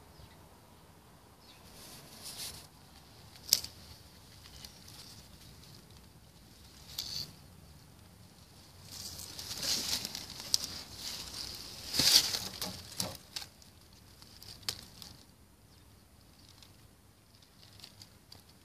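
Scattered rustling and light clicks of movement through leaf litter and undergrowth, with a sharp click about three and a half seconds in and a louder patch of rustling around ten to thirteen seconds in.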